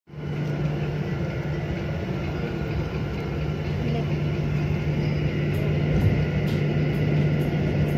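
Steady cabin noise of a jet airliner on the ground after landing: an even engine drone with a low hum and rumble, and a few light clicks in the second half.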